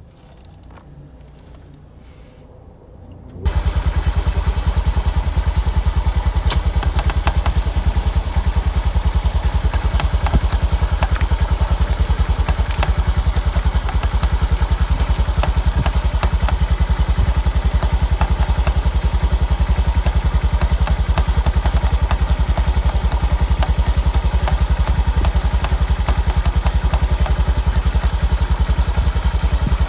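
Honda Grom 125's single-cylinder engine running steadily at an even speed, with a fast, regular firing pulse. It cuts in suddenly about three seconds in, after a few quiet seconds of faint small noises.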